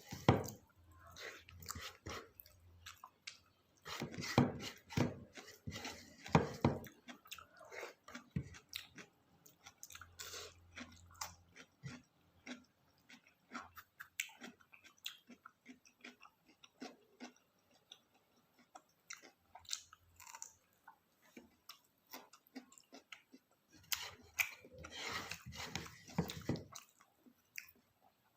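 A person chewing and biting food close to the microphone: many small wet mouth clicks, with a few louder bouts of crunching.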